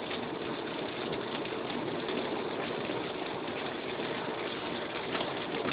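Heavy rain pattering on a moving car's windscreen and roof, heard from inside the cabin, over the steady hiss of tyres on a wet road.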